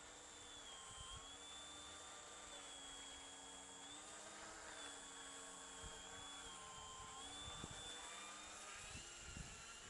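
Foam GeeBee radio-control model plane flying overhead, its motor and propeller giving a faint thin whine that dips and rises in pitch a few times as the throttle changes. A few low bumps come near the end.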